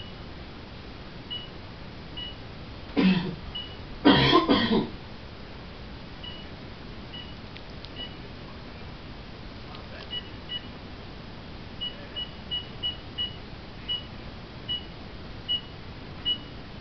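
Two coughs close together, about three and four seconds in, the second one longer. Short high beeps sound at irregular intervals throughout, coming in a quick run near the end.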